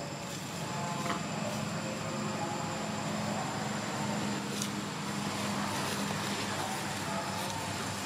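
Steady low hum over an even background hiss, with a couple of faint ticks about a second in and past four seconds.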